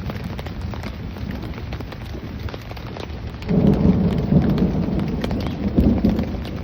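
Rain pattering on the tent fabric, many separate drops ticking over a steady hiss. About three and a half seconds in, a loud low rumble sets in and lasts a few seconds.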